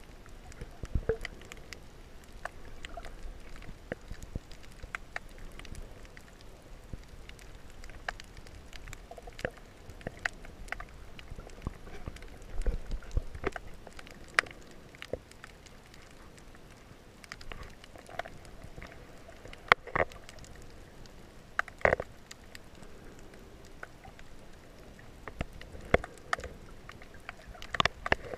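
Underwater sound picked up by a camera held below the surface: a low rumble of moving water with scattered, irregular clicks and knocks, a few louder knocks in the second half.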